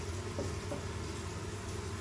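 Quail eggs frying in a small pan over a gas burner: a steady hiss with a low rumble under it, and two faint ticks in the first second.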